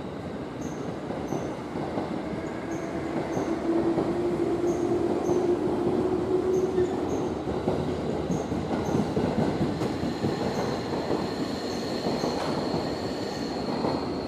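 Electric multiple-unit commuter train running past along the platform: a dense rumble of wheels on rail that swells a few seconds in, with a steady squeal-like tone in the middle. A thin high whine grows in the last few seconds as the train clears.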